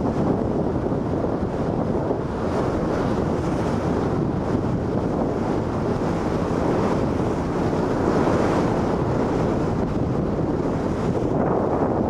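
Wind buffeting the microphone on a boat under way, over a steady rush of water and waves.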